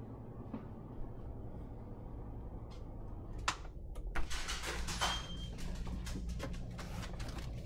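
A back door being unlatched and opened, a few sharp clicks and rattles with a brief squeak between about three and a half and five seconds in, over a steady low hum.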